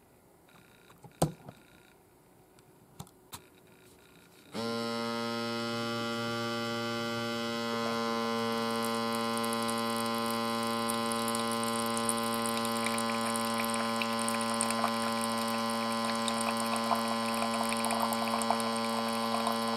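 A few sharp clicks, then about four and a half seconds in an electric wine aerator's pump motor starts with a steady hum and keeps running. Red wine streams from its spout into a glass, with a light crackling splash that grows later on.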